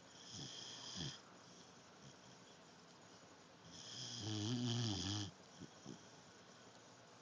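A dog snoring in its sleep: a short snore just after the start, then a longer, louder, pitched snore about four seconds in.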